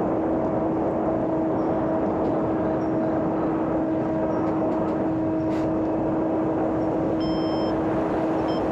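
Small electric motor and 5-inch propeller of a homemade radio-controlled airplane running at a steady cruise: a constant hum over a steady rush of air.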